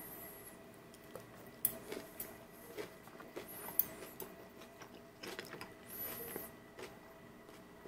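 Stainless steel chopsticks clicking and scraping against the aluminium foil lining of a takeout box as sauced chicken pieces are picked up, with the foil crinkling in short bursts. A faint steady hum runs underneath.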